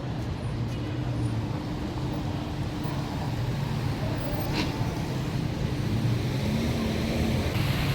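Busy city street ambience: a steady rumble of road traffic and engines with a low hum, and one sharp click about four and a half seconds in.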